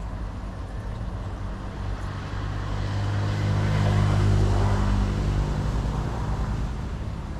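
A motor engine passing by with a steady hum, growing louder through the first few seconds and fading away again.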